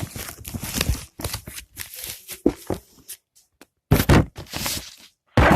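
Laptop packaging being handled and torn open: irregular rustling, crinkling and tearing of plastic and cardboard, with two louder bursts about four seconds in and near the end.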